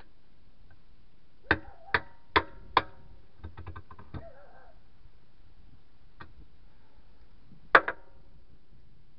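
Hammer striking a tire iron wedged at the bead of a Farmall C rear tractor tire, working the bead off the steel rim: four sharp metallic blows about half a second apart, then a few light clinks, and one more hard blow with a quick rebound near the end.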